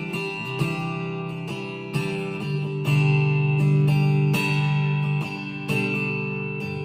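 Harley Benton TE-52 electric guitar played fingerstyle on a clean setting through a Fender Mustang LT25 amplifier: a run of plucked notes and chords, the last one struck near the end and left to ring.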